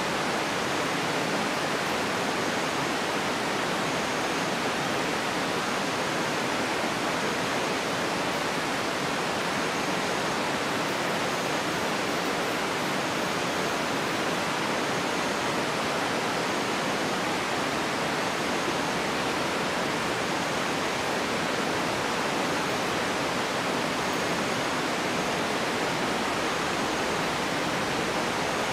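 Steady, even rushing of running water, with short, faint, high-pitched chirps every second or two.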